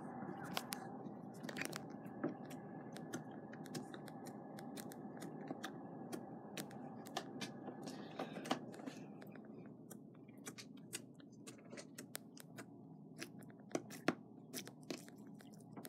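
Glitter slime being poked and squished by fingers: faint, irregular little clicks and pops over a low steady hum.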